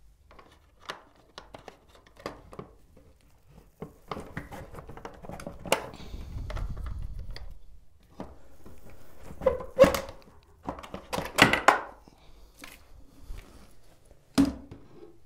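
Scattered clicks, knocks and scraping of a tilt-window sash being worked out of its balance shoes and lifted out of the frame, with a cluster of louder knocks past the middle and one sharp knock near the end as the sash is set down.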